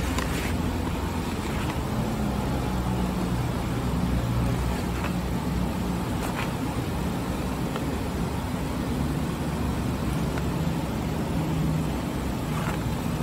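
Steady low rumble of a motor vehicle running in the background, with a few faint light clicks.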